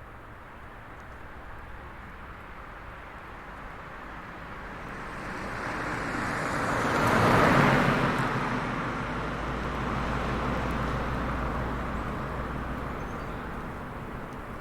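An SUV driving past: engine and tyre noise swell as it approaches, peak about halfway through, then fade as it moves away, leaving a low rumble.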